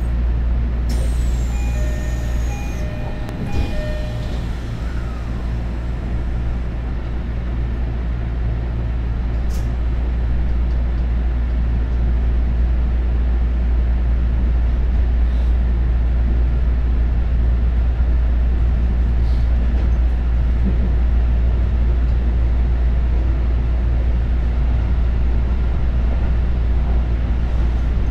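Electric commuter train pulling out of a station, heard from inside the car. A few short electronic tones, a falling high whistle and a hiss of air with a knock come in the first four seconds. Then the train's low rumble grows louder as it picks up speed and runs on steadily.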